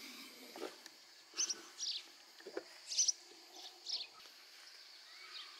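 Small birds chirping outdoors: a handful of short, high chirps at irregular intervals, the loudest about three seconds in.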